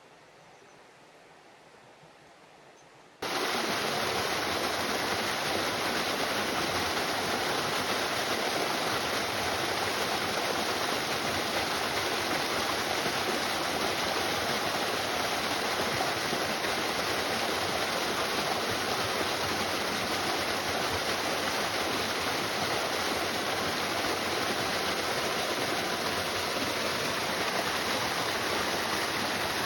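Steady rush of a river's running water, cutting in abruptly about three seconds in after faint quiet.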